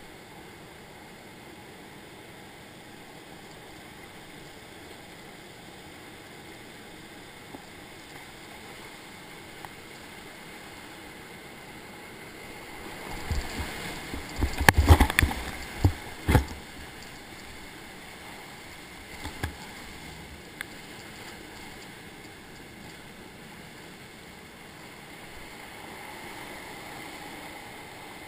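Steady rush of a river running high through rapids, heard from a kayak in the whitewater. About halfway through comes a few seconds of loud splashing and knocks as the kayak crashes through the falls, with a couple of smaller splashes soon after.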